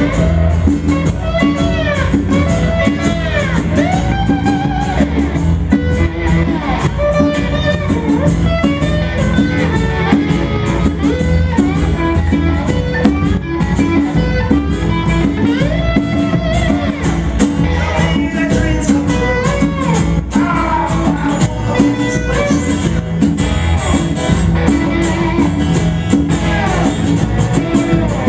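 Live instrumental passage by a small blues band: a lap steel guitar plays sliding notes that bend up and down over a strummed acoustic guitar, electric bass and a steady beat.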